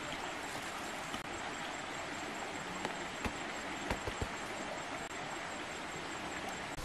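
Steady hiss of outdoor background noise, with a few faint soft clicks.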